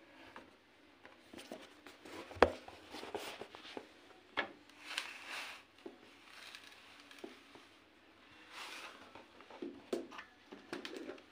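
Handling sounds at a washing machine: a sharp knock about two and a half seconds in, then soft hissing pours of washing powder from a cardboard box into the machine's detergent drawer, with scattered clicks and rustles.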